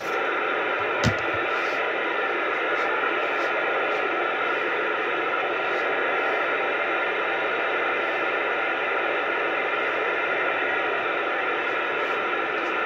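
CB radio receiver hissing with steady static on AM channel 28 (27.285 MHz) while the operator listens for skip, the thin, band-limited hiss of a weak or empty channel. A single short click comes about a second in.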